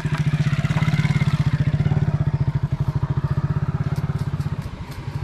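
A small engine running steadily with an even, fast low throb. A few light ticks come about four seconds in.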